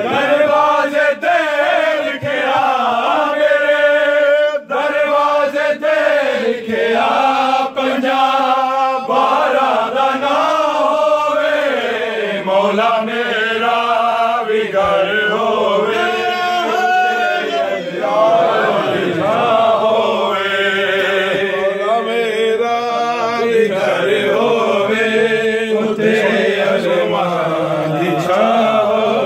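Male devotional chanting in a drawn-out, wavering melody that runs on without a break.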